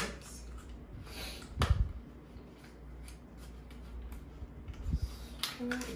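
Small package of press-on nails being handled and opened by hand: rustling and clicking of the packaging, with a louder sharp click about a second and a half in and another near the end.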